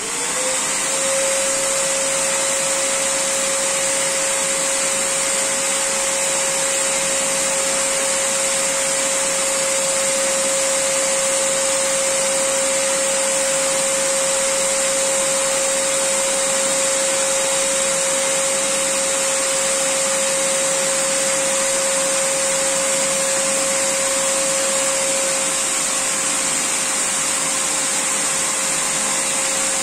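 Electric air pump switched on, spinning up within the first second and then running with a steady hum over a loud hiss as it pumps air through a hose into an inflatable boat.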